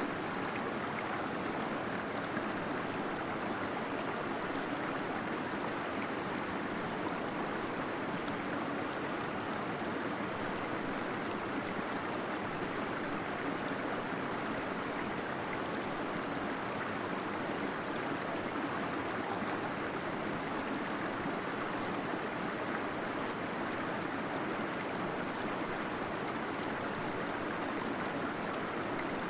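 Steady rushing and gurgling of water from a small waterfall falling inside a cave.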